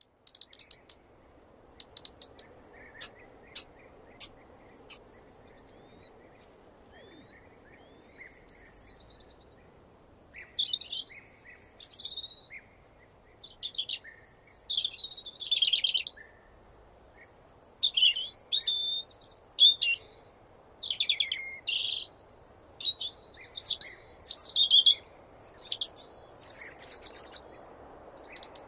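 European robin singing: first a few sharp ticks and short thin high notes, then, from about ten seconds in, a long run of varied high warbling phrases with brief pauses between them.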